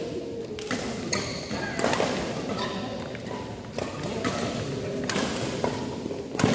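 Badminton rally: sharp racket-on-shuttlecock hits about every half second to a second, echoing in a large hall, with the loudest hit near the end as a player jumps to smash.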